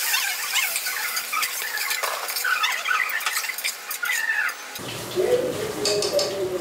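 Perforated metal spoon stirring chicken pieces around a metal pressure-cooker pot, scraping against the pot with squeaky metal-on-metal squeals and small clinks. About five seconds in, a lower sound of wavering pitch comes in.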